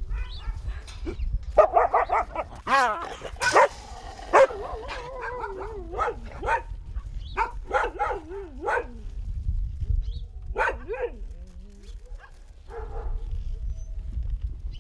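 Several dogs barking and yelping in a group, mixed with a few drawn-out, wavering cries. The calls are packed close together in the first half and come more sparsely toward the end.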